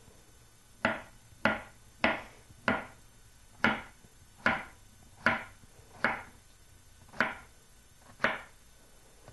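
Chef's knife slicing a yellow crookneck squash into rounds, each cut ending in a knock on a wooden cutting board. About ten cuts at a steady pace of a little over one a second, starting about a second in.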